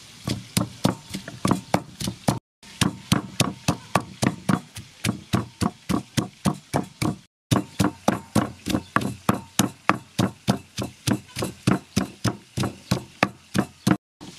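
Wooden pestle pounding garlic and dried red chillies in a wooden mortar: a steady rhythm of dull knocks, about three or four a second, that stops for a moment twice.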